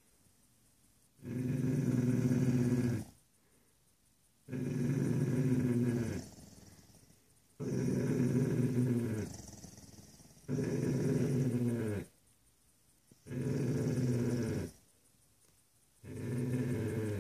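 A dog making a long, low, growl-like vocalisation six times in a row, each lasting under two seconds with a pause of about a second between, several of them dropping in pitch as they end.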